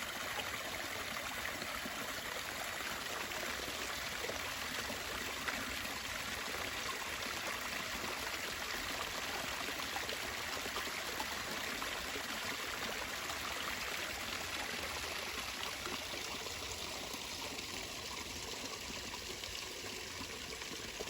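Creek water running steadily, an even rushing sound that eases slightly in the last few seconds.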